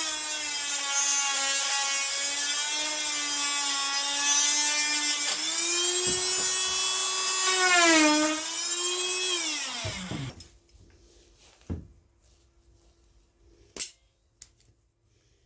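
Dremel rotary tool running at high speed, its pitch sagging as it bears into the plastic and rising when eased off, then spinning down about ten seconds in. A few light clicks follow.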